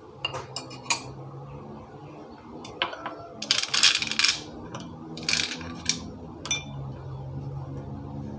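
Glassware and a steel ladle clinking and knocking against a bowl and the countertop as they are handled. About three and a half seconds in there is a louder, denser rattling clatter lasting around a second, followed by a few more separate knocks.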